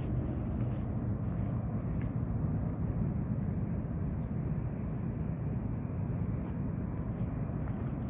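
Steady low rumble of distant city traffic, with a few faint light clicks now and then.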